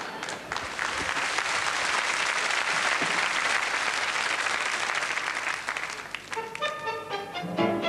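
Audience applauding, a dense run of clapping that fades about six seconds in. Music then starts up near the end.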